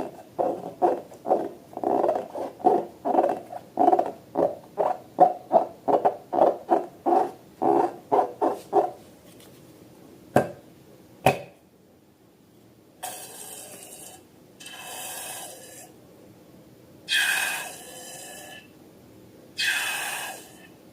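Slime being squeezed and worked by hand: a quick, even run of wet squishing pulses, about three a second, for the first nine seconds, then two sharp clicks and four longer, hissier squelches.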